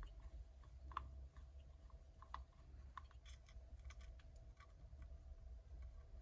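Faint, irregular light clicks and taps, a few each second, over a low steady hum.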